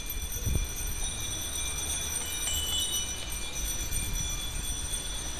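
Riding noise from a moving bicycle's camera: a steady low wind rumble on the microphone over tyre hiss on a wet road, with a few faint steady high tones.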